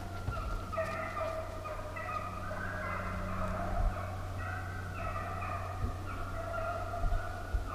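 A pack of deer hounds baying on the chase, several dogs' voices overlapping and shifting in pitch without a break, over a low steady hum.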